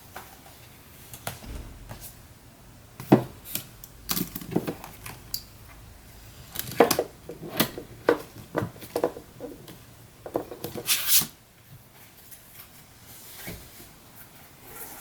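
Personal belongings being handled and packed into a bag: an irregular series of knocks, clicks and short rustles as items are picked up and set down, with a longer scraping rustle near the end.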